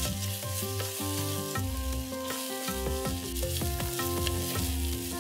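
Sliced onion, ginger, green chili and curry leaves sizzling in hot coconut oil, stirred with a spatula against the sides of a clay pot, under soft background music with held notes.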